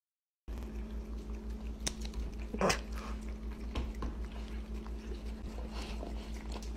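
A cat and a dog licking and chewing spray cheese, with a few short wet smacks and clicks over a steady low hum. The sound starts about half a second in.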